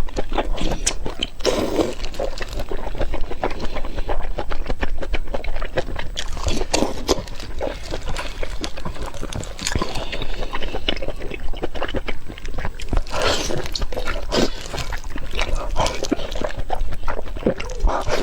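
Close-miked eating sounds of a person chewing and smacking. There are dense, irregular mouth clicks and short wet smears throughout.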